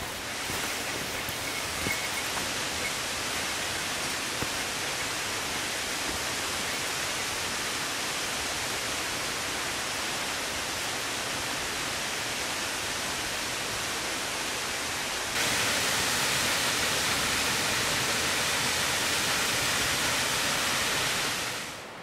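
Potem Falls, a 69-foot waterfall, making a steady rushing roar of falling water. It grows louder about 15 seconds in and fades out near the end.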